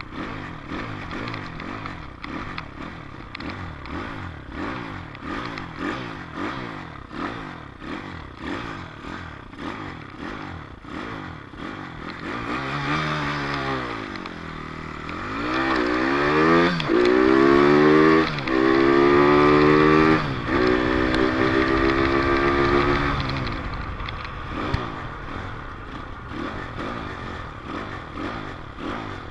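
Dirt bike engine running, then accelerating hard about halfway through, its pitch climbing and dropping back several times as it goes up through the gears, loudest in that stretch before easing off again.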